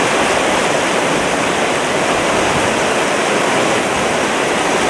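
Fast-flowing river rushing over rocks and around a boulder: a steady, unbroken rush of white water.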